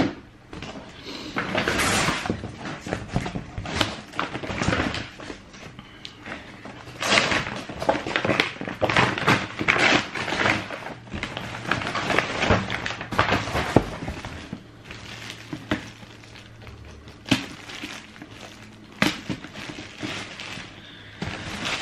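Shoe packaging being handled: a cardboard shoebox and its paper wrapping rustle and crinkle, with scattered knocks and thuds of the box lid and box being moved.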